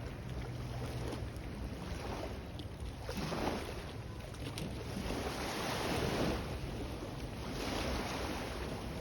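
Sea waves surging and washing in repeated swells, the loudest about six seconds in, with wind rumbling on the microphone.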